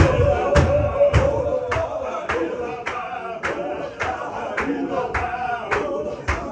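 Chechen Sufi zikr: a group of men chanting in unison, carried by a sharp, even beat of stamping steps a little under twice a second. The deep thuds of the stamps weaken after about two seconds while the beat goes on.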